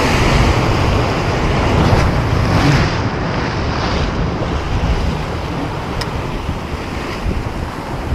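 Sea waves surging and breaking against rocks, with wind rumbling on the microphone. The surf is loudest in the first three seconds, then eases a little.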